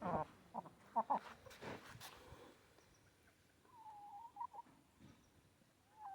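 Chickens calling: a quick run of short clucks and squawks at first, then two longer, slightly wavering calls about four and six seconds in.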